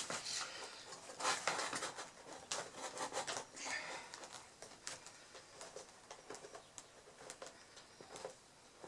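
Handling noise from a DIY projector ceiling-mount bracket: the tripod-socket piece rubbing, scraping and clicking as it is pushed and slid along its dovetail slot. The small clicks and rubs come thickly for the first few seconds, then more sparsely.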